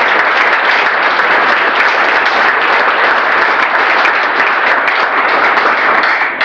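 Audience applauding steadily with many hands, the clapping starting to die away at the very end.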